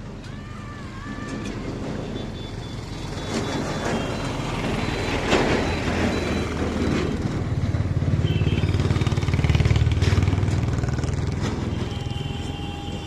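A motor vehicle's engine running close by, growing louder to a peak about ten seconds in and then easing off, with a single sharp knock about five seconds in.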